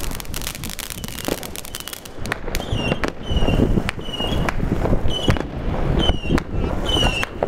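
Fireworks: crackles and scattered bangs throughout, and from about two and a half seconds in, a run of about six short high whistles, roughly one a second.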